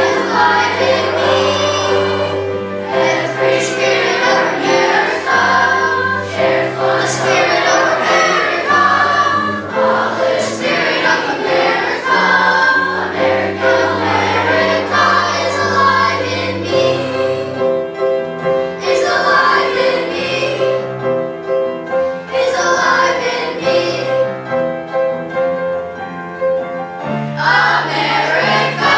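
Sixth-grade school choir singing a song in unison over an instrumental accompaniment, with a bass line moving from note to note beneath the voices.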